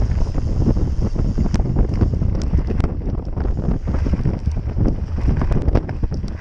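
Wind buffeting a bike-mounted camera's microphone, with the low rumble of a mountain bike riding over a rough dirt trail. Scattered sharp clicks and knocks from the bike over bumps, most frequent in the second half.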